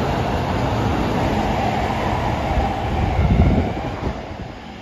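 Osaka Metro Tanimachi Line 22 series subway train passing through the station without stopping, a steady rumble of wheels and running gear. It peaks about three and a half seconds in as the last car goes by, then fades as the train enters the tunnel.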